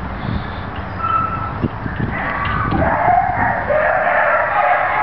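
Many dogs barking at once in shelter kennels, a continuous overlapping din with no single bark standing out.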